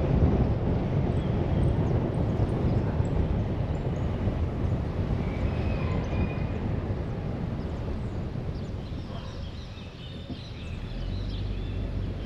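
A car on the move, heard as a steady low rumble of road, tyre and engine noise that eases off about ten seconds in and then builds again. Some faint short high chirps come through in the second half.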